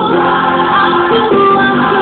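Christian worship song sung by several voices together, holding long notes over instrumental accompaniment.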